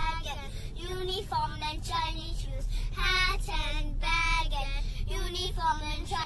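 Background music: a song sung by a high, light voice, in phrases with a wavering vibrato.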